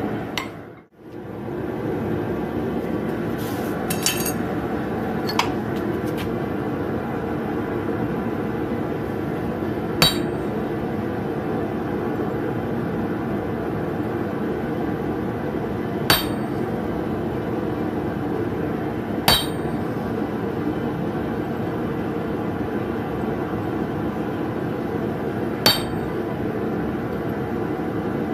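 Hammer blows on a hand-held top tool set on a red-hot nail over a steel anvil: single sharp, ringing metal strikes several seconds apart, about six in all, over a steady loud background roar.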